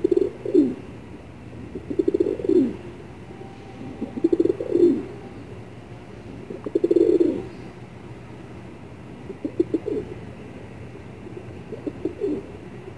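Pigeons cooing: a low, throbbing coo about every two and a half seconds, six in all, the last two fainter.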